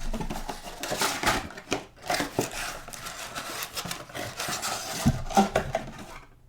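Box of trading cards being opened and handled: rustling with scattered sharp taps and clicks.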